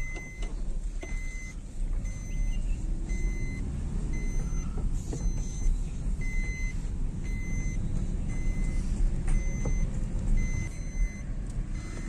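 Cabin noise of a moving Suzuki car: a steady low rumble of engine and road. Over it, a short electronic dashboard warning chime beeps about every three-quarters of a second, stopping near the end.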